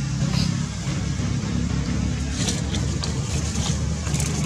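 A motor engine running steadily as a low, even hum, with a few brief crackles in the second half.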